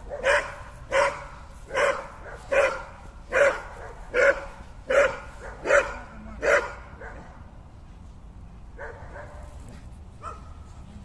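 A dog barking in a steady series of nine loud barks, a little under one a second, which stop about six and a half seconds in; after that only a couple of faint sounds.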